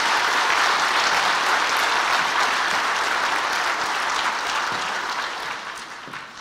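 An audience applauding, steady for several seconds and then dying away near the end.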